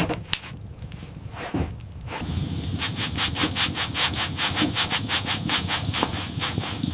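A few knocks, then, from about two seconds in, fast rhythmic rubbing strokes, about five a second.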